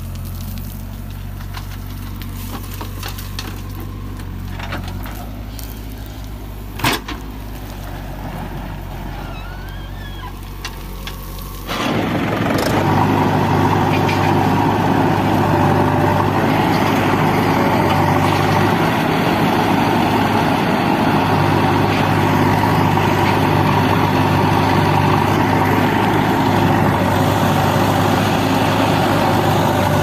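Diesel engines of a JCB 3DX backhoe loader and a Mahindra tractor running steadily. There is one sharp knock about seven seconds in. About twelve seconds in, the sound cuts abruptly to a louder, rougher engine sound that stays steady.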